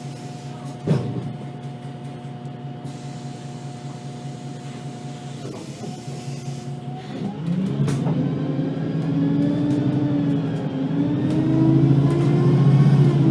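VDL Citea LLE-120 city bus engine idling steadily, with one sharp knock about a second in; from about seven seconds the engine speeds up and gets louder, its pitch climbing and wavering as the bus pulls away.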